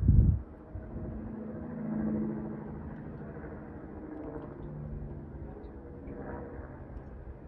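A low thump on the microphone, then a steady distant engine rumble carrying a few faint steady tones that swell about two seconds in and slowly sink in pitch.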